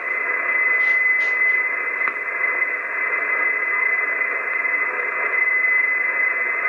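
HF transceiver receiving an empty single-sideband channel between transmissions: steady static hiss with a steady high whistle, and a few short crackles about a second in.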